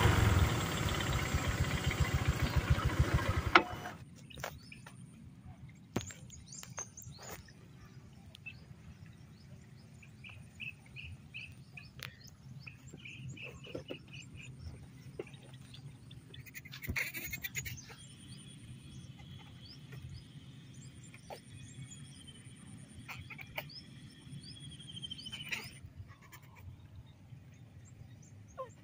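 Motor scooter on the move, with rushing wind and engine noise for the first few seconds, cut off abruptly. Then quiet outdoor background with scattered bird chirps, a quick run of repeated chirps, and one long high call held for several seconds.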